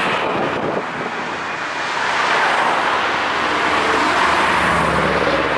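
Cars driving past one after another, with engine and tyre noise. It dips slightly about a second in, then builds again as the next car comes by.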